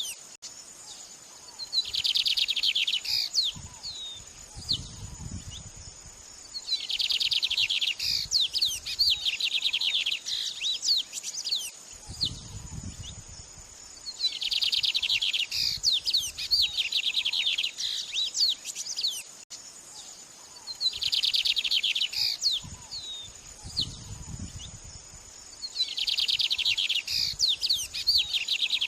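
A songbird singing a fast, dense trill of about a second that recurs roughly every five seconds, with scattered short chirps in between. A steady high whine runs underneath.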